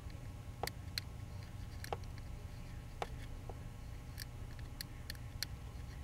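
Scattered faint ticks of a thin torch-tip-cleaner wire being pushed into and pulled out of the terminals of an engine-computer wiring connector, in a pin drag test checking each terminal for loose tension.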